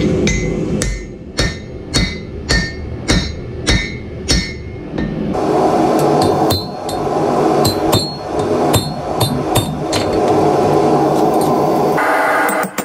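Hand hammer blows on red-hot steel held on an anvil, about two a second, each strike ringing briefly off the anvil. A steady rushing noise sits underneath from about five seconds in.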